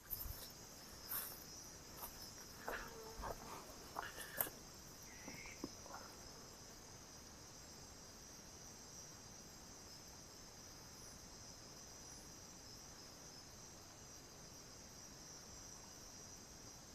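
Chorus of night insects, mainly crickets, a steady high chirring. A few short knocks and rustles come in the first six seconds.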